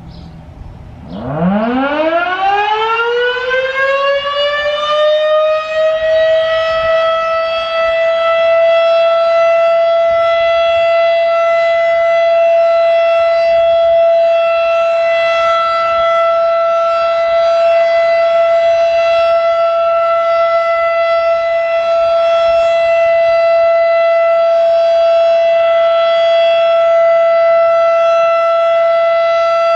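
Federal Electric Model 5 outdoor warning siren winding up about a second in, its pitch rising over about five seconds and then holding one steady, loud tone: the full Alert (steady) signal.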